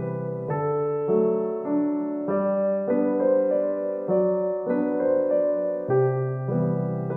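Background piano music: a slow, gentle melody with notes changing about twice a second.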